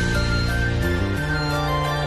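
Instrumental background music with sustained notes over a slowly shifting bass line.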